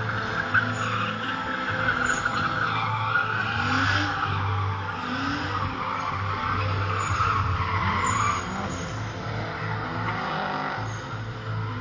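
A drifting car's tyres squealing through a long skid, while its engine revs up again and again.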